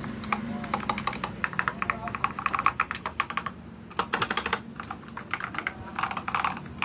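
Typing on a mechanical keyboard: quick runs of keystrokes broken by short pauses, with a brief gap a little over halfway through.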